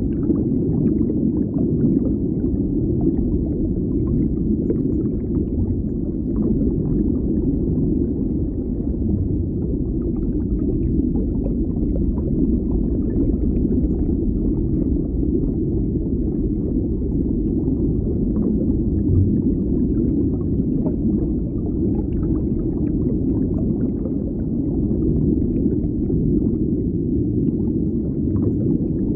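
Deep underwater ambience: a steady, low, muffled rumble with faint crackling ticks scattered through it.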